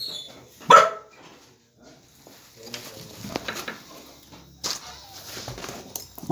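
Bhotiya (Himalayan mastiff) puppy barking at the doorbell, with one loud bark about a second in and quieter sounds after it, then another loud bark starting at the very end.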